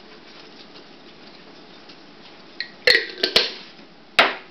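Quiet kitchen room tone, then, from about three seconds in, a short cluster of sharp clinks and knocks with a brief ring as jars and kitchenware are handled on a countertop, and one more sharp knock near the end.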